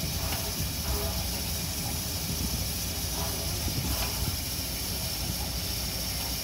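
D51 steam locomotive standing with steam hissing steadily, over a low rumble.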